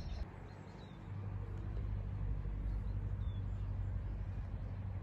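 A steady low rumble that grows louder about a second in, with two faint short high chirps.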